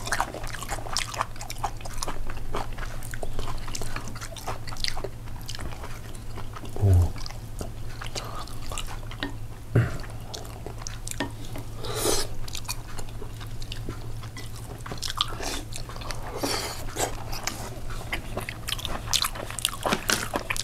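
Close-miked eating sounds: chewing and biting with many small clicks and crunches, over a steady low hum.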